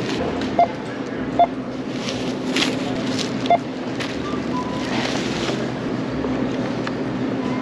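Self-checkout barcode scanner beeping as groceries are scanned: three short beeps in the first few seconds, with plastic bag rustling over a steady store hum.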